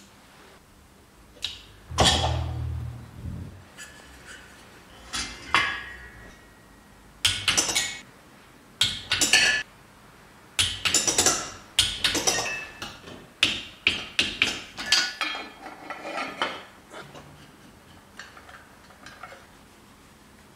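Metal hand tools clinking and clattering in irregular bursts on a Vespa GS 150 engine's cylinder and head, as pliers and a torque wrench are worked on it, with a heavier knock and thud about two seconds in.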